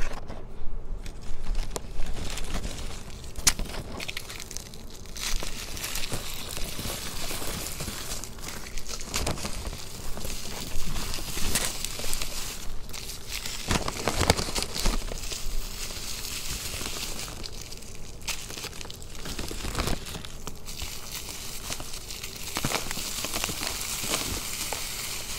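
A block of reformed gym chalk mixed with charcoal and confetti being crushed and crumbled by hand, giving a continuous crackling crunch. Many sharp snaps come through as the crumbled chunks and confetti pieces break and shift.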